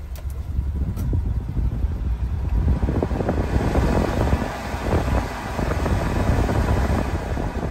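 Heater blower fan of a 1993 Suzuki Carry mini truck's cab being switched up: an air rush swells in about two and a half seconds in and runs loud until near the end, over the steady idle of the engine. A couple of clicks from the dash control sliders come near the start.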